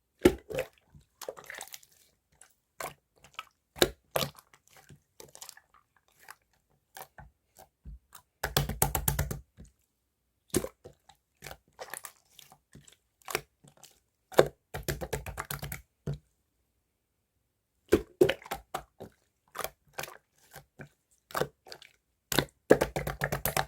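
Clear slime being pressed and stretched by hand, giving bursts of crackling clicks and small pops with short pauses between them.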